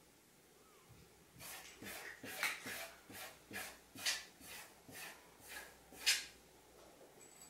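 A cat pawing and scratching at a door, a run of short rasping strokes about three a second that starts just over a second in, the last and loudest near the end. It is the burying motion a cat makes to cover food it refuses to eat.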